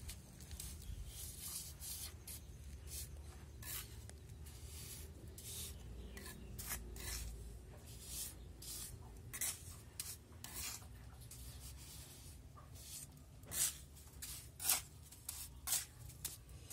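Short, irregular scraping strokes of a small metal tool scratching lines into fresh cement render, carving an artificial rock relief, with a low rumble beneath.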